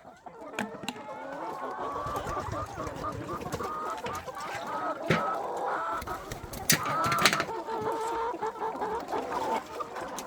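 A flock of chickens clucking, many short calls overlapping continuously, with a few sharp clicks among them.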